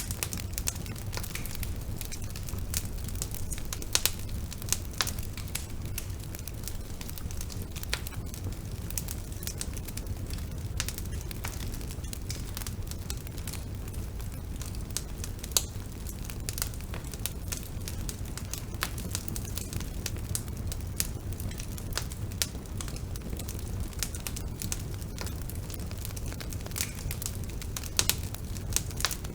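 Bonfire burning steadily, with a low rumble of flames and frequent irregular crackles and pops of burning wood.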